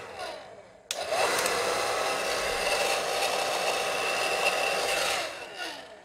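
Wazor hair dryer's fan motor cutting in and out. It dies away, kicks back on with a click about a second in, runs with a steady airy whine for about four seconds, then cuts out again and spins down. The fault is an intermittent power connection, which the owner suspects is a bad cord.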